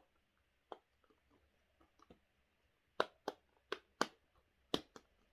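A silicone simple dimple fidget toy being pressed, its bubbles popping with sharp clicks: a few faint pops at first, then a quicker run of louder pops from about three seconds in.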